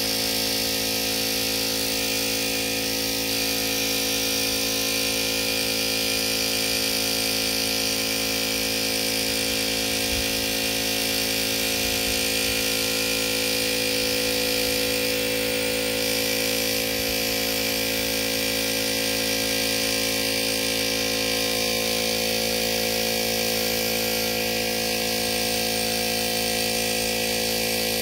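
Air compressor running steadily, with the hiss of compressed air through a gravity-feed paint spray gun spraying single-stage paint.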